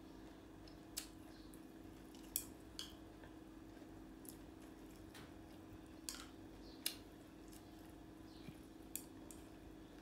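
Chopsticks clicking against a small bowl while food is picked up and eaten: about eight short, sharp clicks spaced irregularly, over a faint steady hum.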